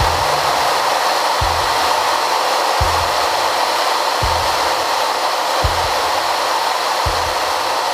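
Steady rushing cockpit noise of an F4U-4 Corsair in flight, from the airflow and engine. Under it, a deep low thump repeats evenly about every second and a half.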